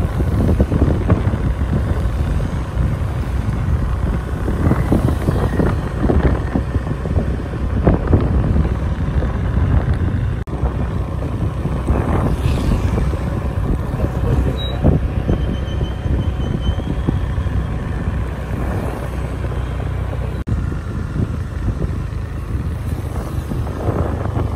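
Road vehicle noise: a steady low rumble.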